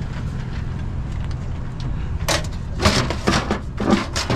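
Steady low hum of an idling vehicle engine, with a run of short knocks and rattles starting about two seconds in.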